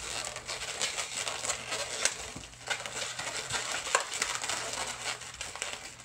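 Latex twisting balloons being handled and twisted close to the microphone: the rubbing of the balloon skins against each other and the hands, with many small sharp ticks and one louder click about four seconds in.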